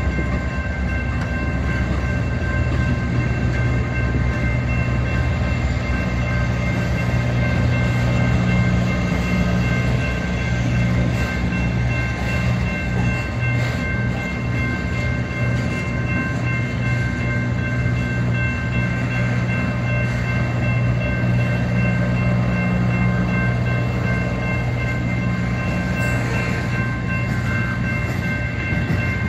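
Slow-moving Union Pacific freight train: a steady low rumble with several thin, steady high tones held over it.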